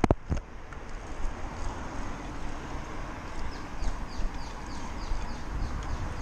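Wind on the microphone and the steady rumble and rattle of a Lime hire bike rolling along a paved path, with a few knocks near the start. A run of short, high, falling chirps sounds through the middle.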